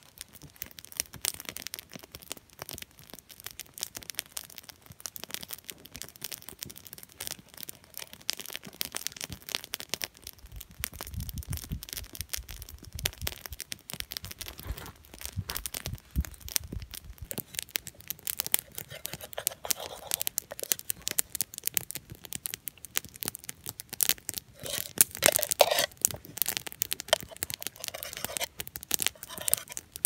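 Wood campfire crackling with frequent small pops and snaps. Near the end a wooden utensil scrapes and taps on a metal frying pan as food is cut.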